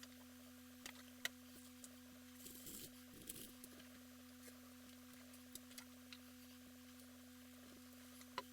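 Near silence: a faint steady hum with scattered small clicks and taps.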